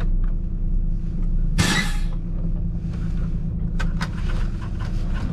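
The 2005 Volvo B12B coach's 12-litre six-cylinder turbo diesel idling, heard from the driver's seat. A short, sharp hiss sounds about a second and a half in, and a couple of clicks near the end.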